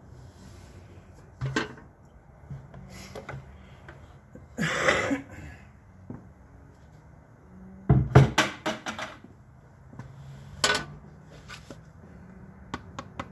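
Knocks and clatter from a plastic fluid bucket and funnel being handled, with a short scrape about five seconds in and a quick cluster of louder knocks about eight seconds in.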